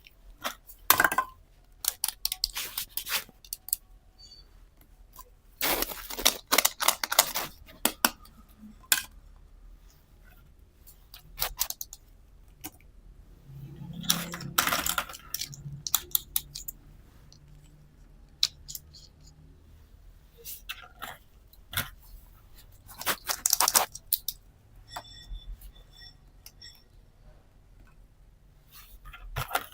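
Small plastic toy pieces being handled and set down, in several separate bursts of clicks and clatter.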